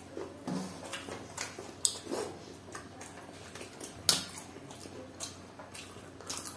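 Close-miked eating sounds: chewing and lip smacks on fried chicken-skin pakoras, with scattered sharp clicks, the loudest about four seconds in.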